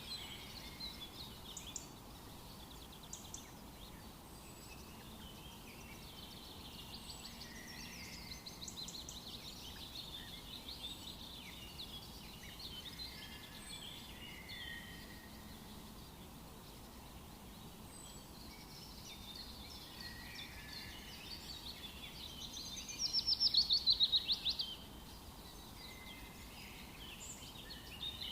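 A chorus of forest birds calling and singing, with overlapping chirps and trills throughout. About 23 seconds in, one bird gives a loud, rapid trill that lasts under two seconds and is the loudest thing heard.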